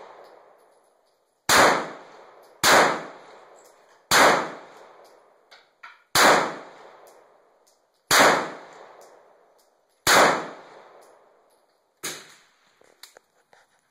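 Heckler & Koch P7 PSP 9mm pistol being fired, six shots at an uneven pace about one to two seconds apart, each shot ringing briefly. A fainter sharp report follows near the end.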